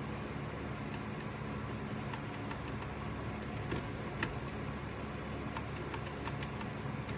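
Light, scattered clicks and taps from handling the opened-up Ryobi 18-volt crown stapler's parts, over a steady low hum.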